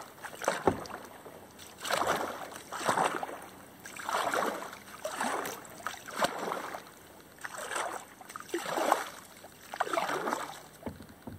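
Kayak paddle strokes through duckweed-covered pond water: a swish and splash as each blade dips and pulls, about one stroke a second, alternating sides in a steady rhythm.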